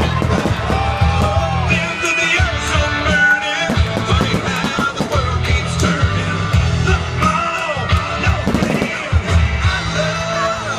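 Rock song playing, with a singer over a driving beat.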